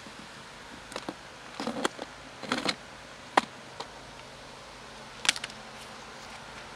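Clear plastic clip-lock food container being unlatched and opened: a string of sharp plastic clicks and snaps as the locking tabs pop free and the lid comes off, the sharpest about three and a half seconds in.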